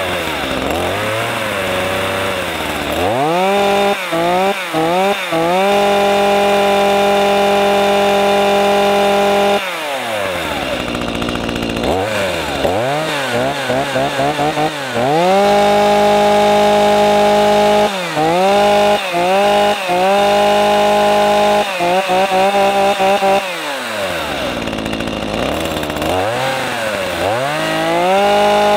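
Chainsaw engine idling and being revved: short throttle blips and flurries of quick revs, held at full speed for a few seconds several times and dropping back to idle in between. It rises to a held high rev again near the end.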